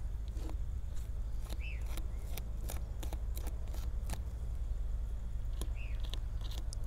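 Small wet clicks and squelches of fingers and a small blade working inside a plucked dove's body cavity as the intestines are pulled out. A steady low hum runs underneath, and two short high chirps come about two and six seconds in.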